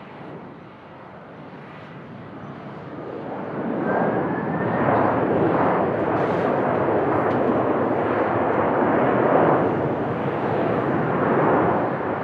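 Boeing 767-300 jet engines on the landing rollout, swelling about four seconds in to a loud, steady roar as reverse thrust spools up, with a faint rising whine as the roar builds.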